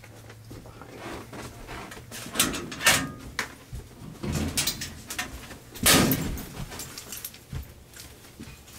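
Metal locker door and its contents clattering, with a string of sharp knocks and rustling of clothes; the loudest knock comes about six seconds in. Toward the end, softer rustling of coats and hangers on a clothes rack.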